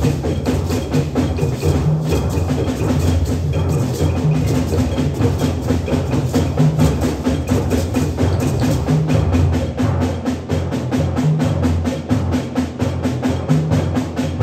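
Percussion ensemble playing: a row of small hand drums struck in a quick, steady rhythm over repeated low timpani notes.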